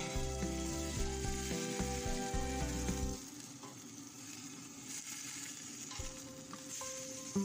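Potatoes, carrots and peas sizzling in a hot pot as they are stirred, under background music. The music is loud at first and turns much quieter about three seconds in.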